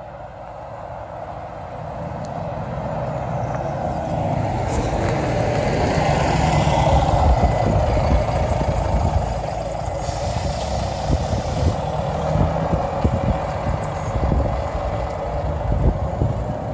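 Single-deck bus approaching and passing close by, its engine growing steadily louder over the first seven seconds or so, then running on as it pulls away. A hiss of air about ten seconds in lasts a couple of seconds. Another vehicle comes past near the end.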